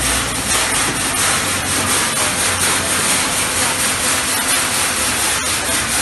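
Grain poured from a sack into the hopper of a running vertical grain dryer's bucket elevator: a steady rushing, rasping noise of grain and machinery.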